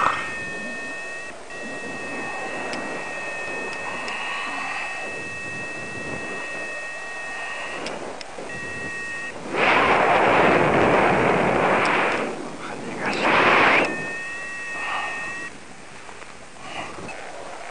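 Paragliding variometer giving a steady electronic tone that breaks off about eight seconds in and returns briefly later. Wind rushes loudly over the microphone for a few seconds in between.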